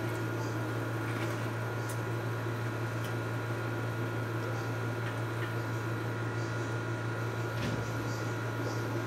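A steady low electrical hum, with a few faint ticks.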